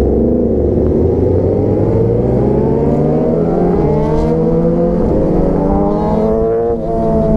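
Motorcycle engine accelerating through the gears: the revs climb, drop sharply at three upshifts, and climb again after each.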